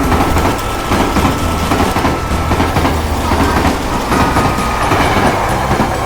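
Plarail battery-powered plastic toy trains running on plastic track: small electric motors whirring, with rapid clicking of the wheels over the track joints.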